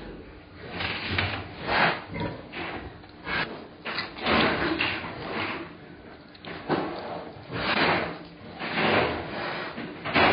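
A sow farrowing in a farrowing crate, making a series of short, noisy huffs and grunts at an irregular pace of roughly once a second.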